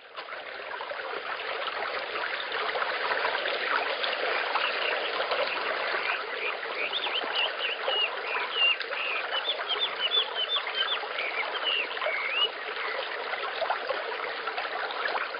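Nature ambience of steadily rushing water with small birds chirping over it, the chirps coming in a quick flurry from about six to twelve seconds in.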